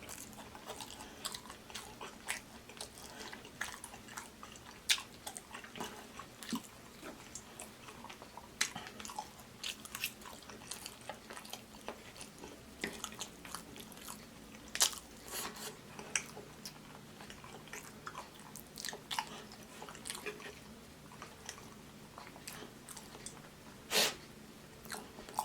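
Mouth sounds of someone eating oxtails: wet chewing and lip smacking, with many short clicks and a few louder smacks.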